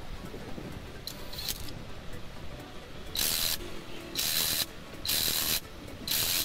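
INGCO cordless impact wrench tightening the nut on the magneto flywheel rotor of a Hero Honda Passion engine. It fires in short bursts: one brief faint burst about a second in, then four louder bursts about a second apart in the second half.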